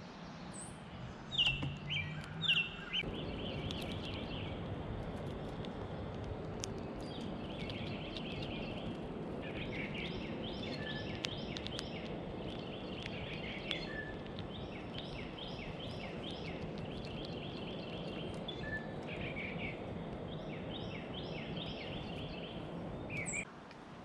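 A few sharp, loud bird call notes, each dropping slightly in pitch, in the first few seconds. Then a busy background of wild bird chirps and twitters over a steady outdoor noise, which stops abruptly near the end.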